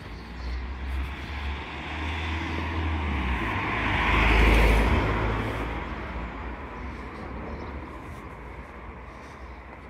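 A car drives past close by. Its engine and tyre noise builds to a peak about halfway through, then fades away as it recedes.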